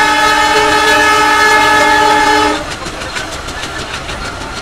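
Train horn sounding one long steady blast of several tones at once, cutting off about two and a half seconds in, over the running noise of the train's wheels on the rails.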